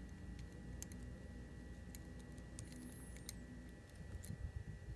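Faint, irregular small clicks of a pick working inside a Medeco Original high-security lock while its pins are turned into alignment, a handful of ticks spread over a few seconds.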